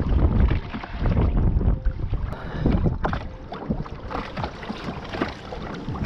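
Wind buffeting the microphone on a fishing kayak, a heavy rumble, with water slapping the hull and irregular knocks and rustles.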